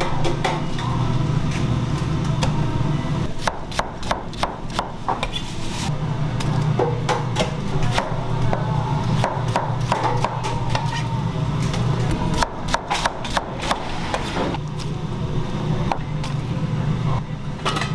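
Chef's knife cutting onions on a plastic cutting board: sharp knocks of the blade striking the board in quick irregular runs, over a steady low hum.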